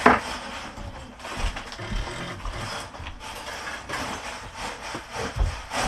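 Handling noises: a sharp rustle or click at the start, then scattered clicking and rustling, with a few dull thumps like footsteps on a wooden floor.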